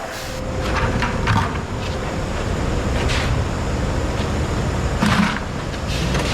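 An engine runs with a steady low rumble, with scattered short clanks and scrapes over it, the loudest a little after five seconds in.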